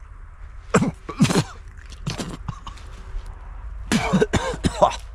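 A man coughing and hacking in a few short bursts, then groaning near the end: his reaction to the bitter taste of a bitter bolete (Gallenröhrling) he has just tasted.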